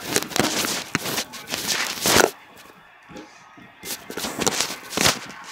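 Rustling, scraping and knocking of a handheld phone being moved close to the microphone, in two bursts with a quieter lull about halfway.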